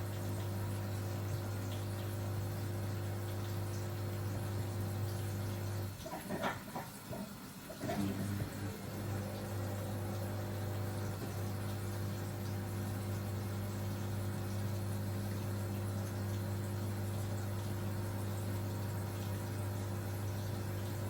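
Steady electric motor hum from a kitchen appliance. It cuts out about six seconds in during a couple of seconds of clattering, then starts up again and runs on.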